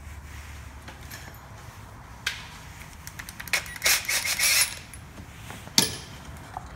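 Small hard objects being handled: a few short clinks and clattering rattles about two to five seconds in, then one sharp click near the six-second mark.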